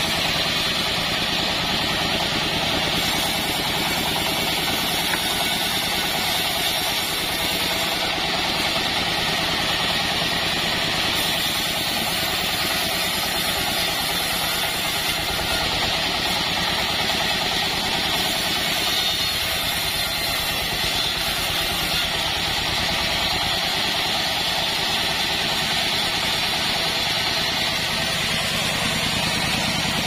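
Band sawmill running steadily, its drive and band blade making a constant mechanical drone.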